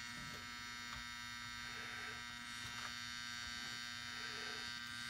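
Pistol-grip soldering gun buzzing steadily from its transformer while its tips heat a solder joint for desoldering.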